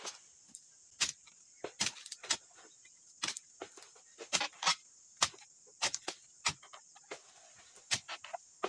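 A dodos chisel cutting oil palm fronds: irregular sharp cracks and crunches, one or two a second, over a steady high-pitched insect drone.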